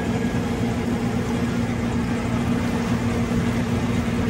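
Engine of a Harbour Hopper amphibious tour vehicle running steadily, heard from on board, with a constant hum.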